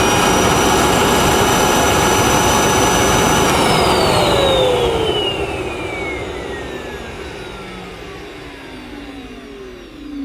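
EGL 600-watt mains-powered handheld vacuum cleaner running steadily at full speed with its nozzle held to a suction gauge. It is switched off about three and a half seconds in, and its motor whine falls steadily in pitch as it spins down.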